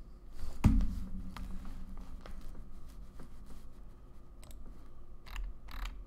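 Faint scattered clicks from a computer mouse, with a sharper knock about half a second in and a low steady hum behind them.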